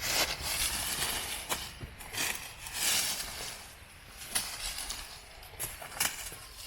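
Dry sticks and leaves rustling and crackling irregularly, with a few sharp snaps, the clearest about four and a half and six seconds in.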